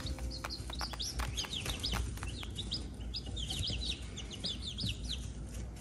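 A brood of baby chicks peeping continuously, many short high chirps overlapping several times a second.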